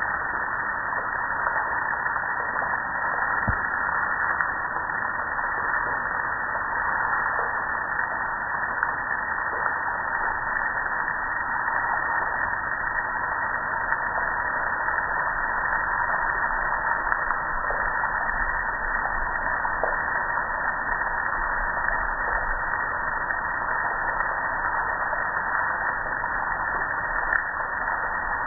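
Water spraying onto a gas grill and streaming off it onto concrete: a steady, unbroken hiss of spray and splashing.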